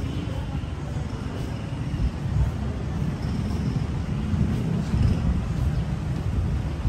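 Outdoor street ambience: a low, steady rumble, as of distant traffic, with no clear single event.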